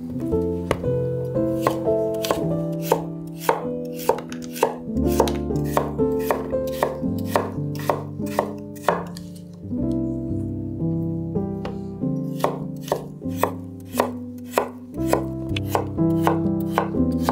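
A knife chopping on a cutting board in quick, regular strokes, about two or three a second, with two short pauses.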